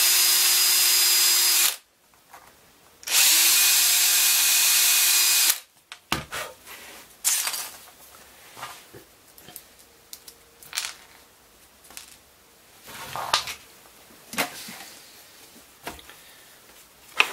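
Cordless drill with a 3.5 mm bit running at steady speed, drilling out the centre of plastic stormtrooper helmet mic tips: two runs of about two seconds with a short pause between. After that come light scattered clicks and knocks of the helmet and parts being handled.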